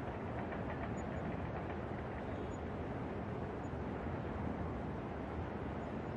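New York City night ambience heard from a rooftop: a steady, unbroken low rumble of distant city traffic.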